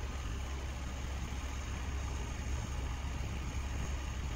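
Light truck's engine running steadily under load, driving the hydraulic hook-lift arm as it slowly tilts the dump body.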